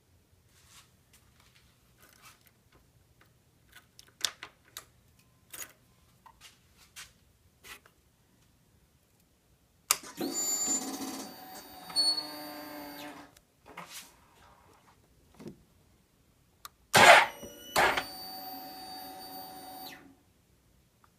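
2001 Suzuki GSX-R1000's electric starter turning the engine over in two tries of about three seconds each, the engine not catching, even with a new battery. A few faint clicks come before the first try.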